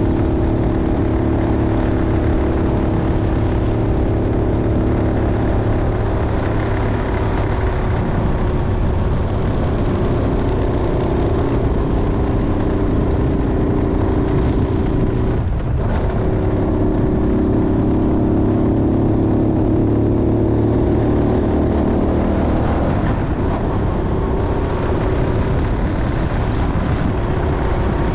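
Motorcycle engine running steadily while riding, over a continuous low rumble. About halfway through, the engine note dips briefly and then picks up again.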